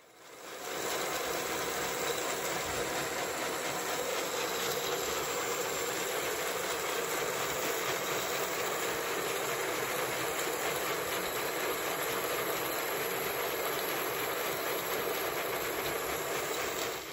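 16 mm scale live-steam Garratt model locomotive running under steam: a steady rush of steam hiss and fast exhaust beats. It fades in over the first second and fades out at the end.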